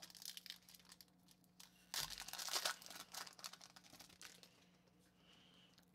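Plastic wrapper of a hockey card pack being torn open and crinkled by hand. There is a louder rustle about two seconds in, and it fades out near the end.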